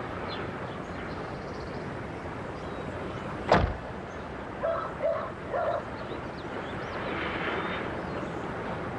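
Steady outdoor background hiss of a film soundtrack. One sharp thud comes about three and a half seconds in, then a dog barks three times in quick succession.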